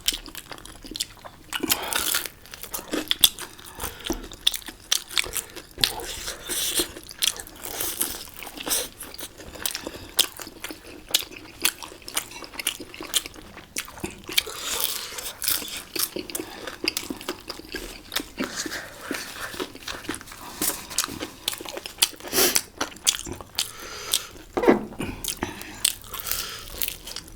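Close-miked chewing and biting of momo dumplings, with many irregular crisp clicks and crunches.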